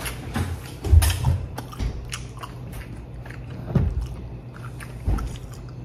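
A person chewing food close to the microphone, with scattered small clicks of wooden chopsticks against a plastic bento tray and a few dull low thumps, the loudest about a second in.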